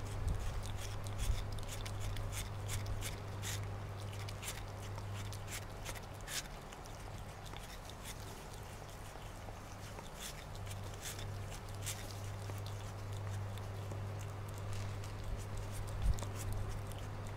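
A cat chewing and licking watermelon flesh: irregular small wet clicks and smacks of its mouth on the fruit, over a steady low hum.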